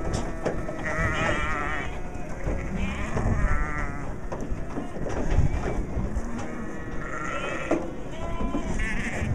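Sheep bleating: several wavering calls, each about a second long, as the flock comes off a livestock trailer.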